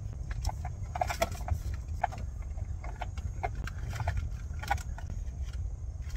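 Camping gear being handled and packed up: irregular knocks and clicks over a low steady rumble.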